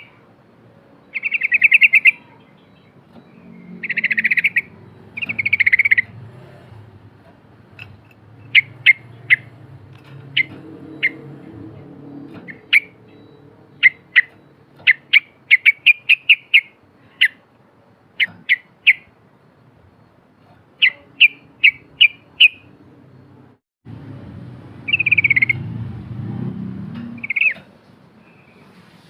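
Yellow-vented bulbul (trucukan) singing: short rapid bubbling phrases, then a long run of quick sharp chirps, then more bubbling phrases near the end.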